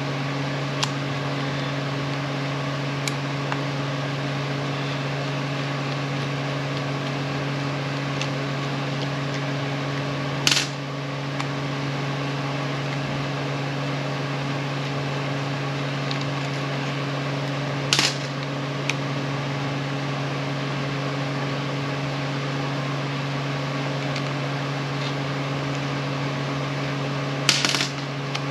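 A steady low hum, with a few sharp knocks from tools and impact-wrench parts being handled on a workbench; three of them, about a third, two thirds and near the end of the way through, are loud.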